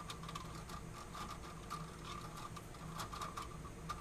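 Faint scattered clicks and ticks of stiff plastic 3D-printer filament (PLA) being handled and straightened by hand, over a low steady hum.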